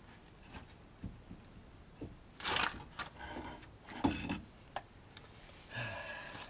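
Scattered metal clinks and knocks with three short scraping rubs, from the front axle shaft and hub assembly being worked loose and drawn out of the steering knuckle as one piece.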